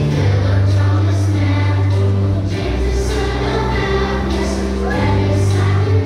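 Music with a choir singing over held bass notes that change every couple of seconds.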